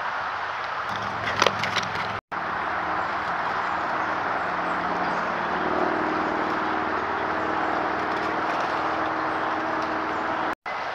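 Steady hiss from a trail camera's microphone, with a faint low hum underneath and a few sharp clicks about a second and a half in. The sound cuts out completely twice for an instant, at joins between camera clips.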